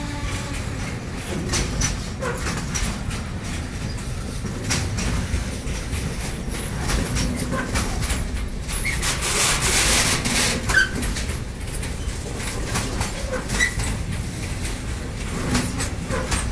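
Intermodal freight wagons rolling slowly past on the rails: a steady low rumble with irregular clicks and clacks of the wheels, and a few short squeaks. A louder hiss rises for a second or so about halfway through.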